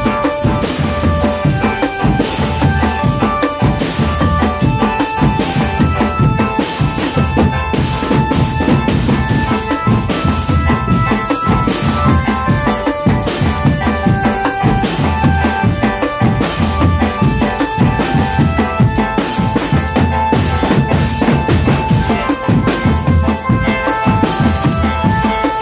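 Indonesian street drumband playing: snare and tenor drums, bass drums and cymbals beating a steady rhythm, with a melody of held notes over them.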